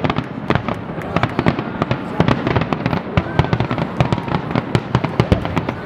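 Aerial firework shells bursting in quick succession: a dense, irregular run of booms and crackling reports, several a second.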